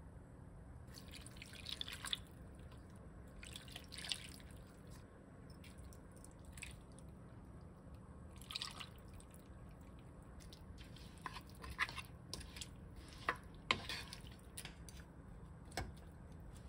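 Quiet kitchen sounds: liquid seasonings (fruit juice and soy sauce) poured in short splashes over pork rib pieces in a nonstick wok, with a few light clicks of containers and utensils. Near the end, a wooden spatula stirs the meat.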